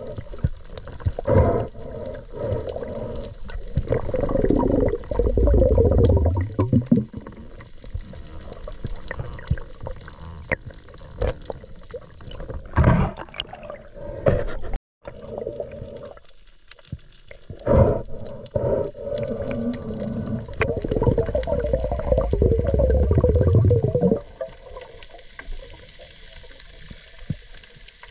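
Muffled underwater water sound, gurgling and sloshing, swelling in several louder surges with quieter stretches between. It cuts out completely for a moment about fifteen seconds in.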